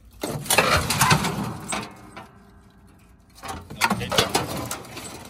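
Thin sheet-metal appliance panels being shifted by hand, scraping and clattering in two bursts: the first lasts about two seconds, the second comes near the end.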